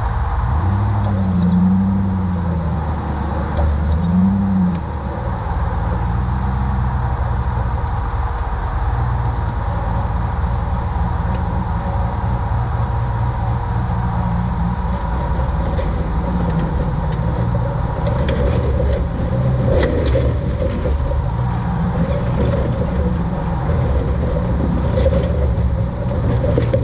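Rock-crawler buggy's engine revving twice in the first few seconds, then running steadily as it crawls over rocks. Short knocks and rattles come through in the second half.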